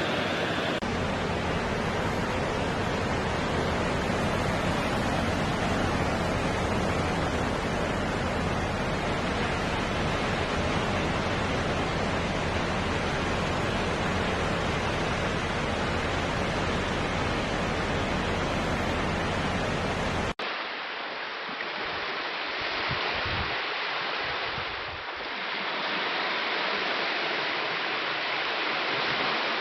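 Ocean surf washing on a shore, a steady rush of water. About two-thirds of the way through it cuts abruptly to a different, duller-sounding recording of water.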